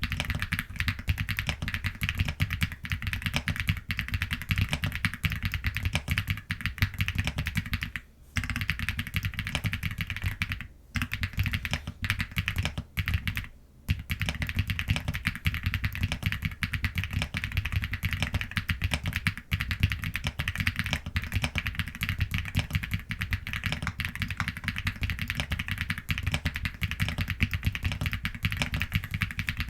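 Fast, continuous typing on an Epomaker Galaxy 70 mechanical keyboard with a full aluminium case and Huano Blossom linear switches (40 gf). Keystrokes follow each other rapidly, with brief pauses about eight, eleven and thirteen seconds in.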